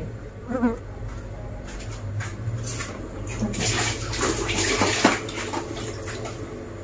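Eating sounds from people eating with their hands, with a noisy stretch of about a second and a half around the middle as a drink is taken from a glass, over a low steady hum.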